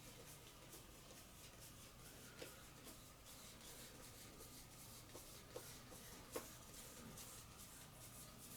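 Faint rustle of trading cards being handled and slid through the hands, with a few small clicks as cards are set down, the last and loudest about six seconds in.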